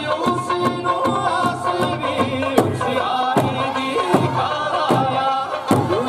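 Eisa drumming: a folk song with singing over large barrel drums and small hand drums struck together in a steady beat, about one stroke every 0.8 seconds.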